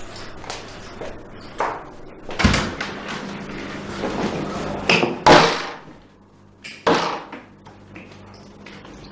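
A door being opened, with several sharp knocks and thumps, the loudest about five seconds in, among footsteps.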